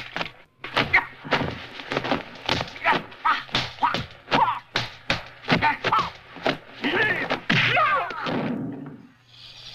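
Martial-arts film fight sound effects: a rapid series of punch and kick impacts, about two to three hits a second, stopping shortly before the end.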